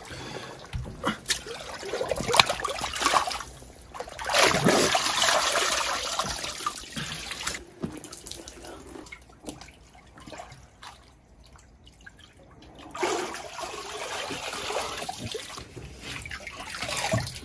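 Water sloshing and splashing in an ice bath tub as a person dunks in it, in two louder spells, one a few seconds in and another later on.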